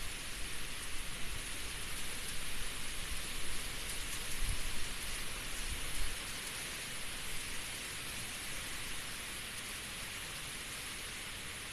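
Heavy typhoon rain pouring steadily, with gusty low rumbles on the microphone and louder swells in the first half that settle about halfway through.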